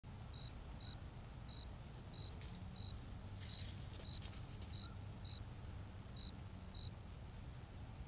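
A cricket chirping, short single-pitch chirps roughly twice a second and slightly irregular, over a low steady hum. Two brief rustles come about two and a half and three and a half seconds in.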